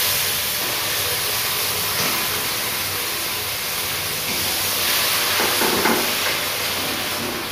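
Onion, ginger and garlic paste sizzling in hot oil in a metal kadai as it is poured in and stirred. The frying hiss is steady, louder right at the start and again about five seconds in.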